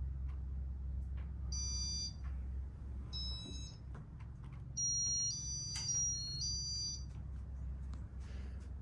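Steady low electrical hum, likely a Casablanca San Marino ceiling fan's motor running, with a string of high electronic beeps over it: a short beep about a second and a half in, another about three seconds in, then a longer run of beeps stepping in pitch from about five to seven seconds.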